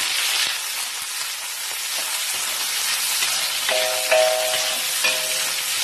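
Chopped onion sizzling in hot cooking oil in a wok, stirred with a metal ladle; a loud, steady frying sizzle.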